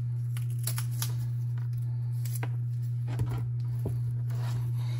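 Faint crackles and taps of sliced white onion being pulled apart into rings and its ends and core handled on a cutting board, over a steady low hum. There is a soft knock a little over three seconds in.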